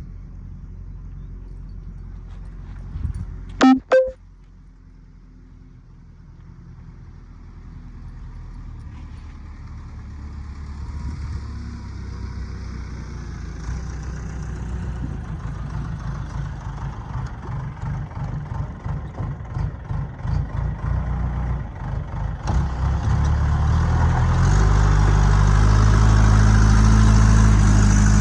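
A motor engine running steadily with a low rumble, growing louder toward the end, with a short, very loud blast about four seconds in.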